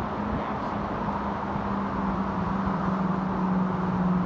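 Steady outdoor background noise with a constant low hum.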